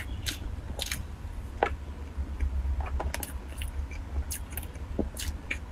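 Scattered small clicks and crackles from a black plastic food tray being handled and soft green cream-filled cakes being pulled apart and chewed, over a low steady hum.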